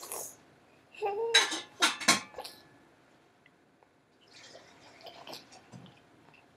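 A baby's short babbling sound about a second in, followed by a few sharp clinks and later fainter clattering from kitchenware as his milk bottle is made up.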